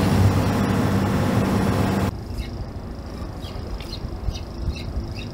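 Fishing boat's Yanmar marine diesel engine running under way, with a steady hum and the rush of wind and water over it. About two seconds in this gives way to a quieter low hum with a series of short, high chirps.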